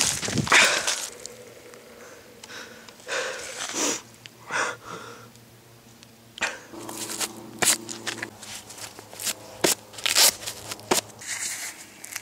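Dry leaves crunching and rustling, loudest near the start, followed by a string of short scrapes and sharp clicks from protective pads and gear being handled.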